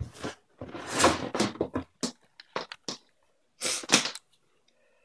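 Rustling and clattering of objects being handled and moved about, in several bursts with a few sharp clicks, while a multimeter is fetched.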